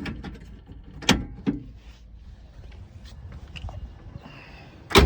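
Sharp clicks and knocks of a car door's power lock mechanism being worked by hand: one about a second in, another soon after, and the loudest near the end.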